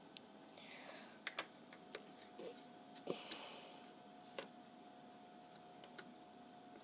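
Faint handling of plastic Lego pieces: a few sharp, scattered clicks with soft rustling between them, over a faint steady tone.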